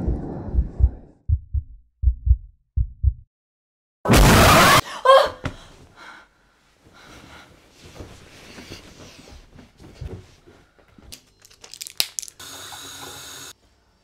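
Horror-film sound design: low paired thuds like a slowing heartbeat, then about four seconds in a sudden, very loud burst of noise, a jump-scare hit on waking. Quieter rustling and breathing follow, then a few sharp clicks and a short steady hiss near the end.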